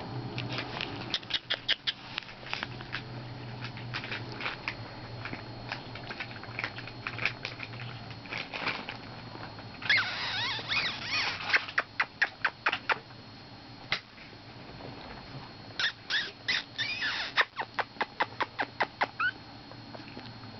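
Four-week-old puppies squeaking and whimpering in two short bouts of high, wavering cries, about halfway through and again near the end. Quick clicks and little taps run throughout.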